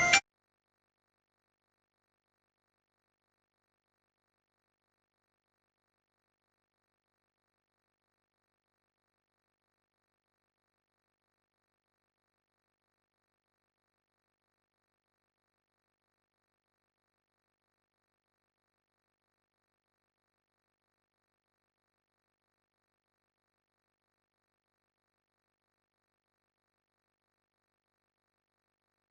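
Digital silence: the soundtrack is empty. A moment of background music cuts off right at the start.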